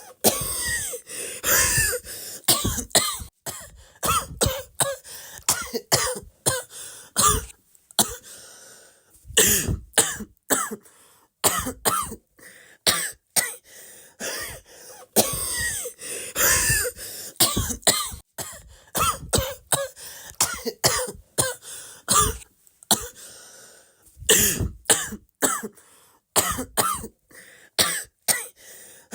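A person coughing over and over in short, separate bursts, about one to two coughs a second with brief pauses between them.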